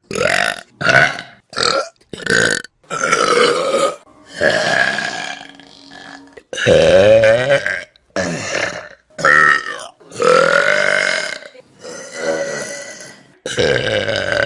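A quick succession of about a dozen loud human burps, one after another from different people, some short and some long and drawn out.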